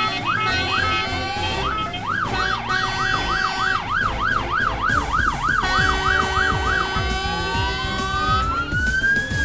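Fire truck sirens sounding together: a fast yelp sweeping up and down about three times a second, then a slow wail rising near the end, over steady held siren tones.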